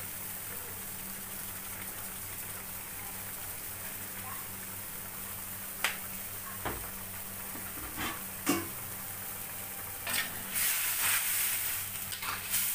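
Turmeric curry simmering in a steel wok on a gas burner, a steady bubbling hiss over a faint low hum, with a few sharp clicks around the middle. From about ten seconds in, a metal spatula stirs and scrapes in the wok.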